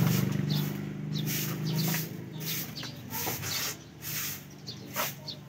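Repeated short, hissy swishes of a stick broom (walis tingting) sweeping a floor, several strokes a second. For the first two seconds a louder, low, steady droning hum sits under the strokes, then fades out.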